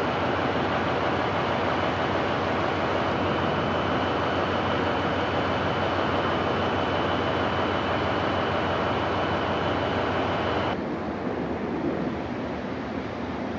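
Steady rumble and hiss of a railway station, with a faint steady high whine; about eleven seconds in it drops suddenly to a quieter, duller noise.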